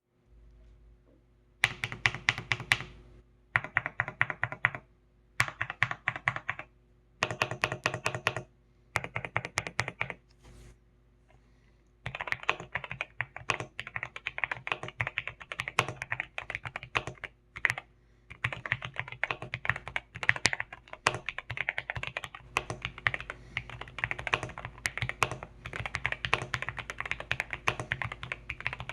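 Typing on an Akko MU01 mechanical keyboard with rosewood keycaps and Akko Rosewood switches: five short bursts of fast key clacks, each about a second long with pauses between, then continuous typing from about twelve seconds in.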